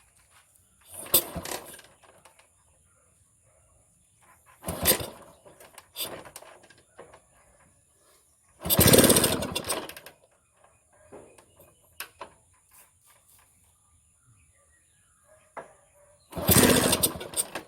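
Small motorcycle engine being started over and over: four short spells of engine noise with pauses between, the longest and loudest about halfway through.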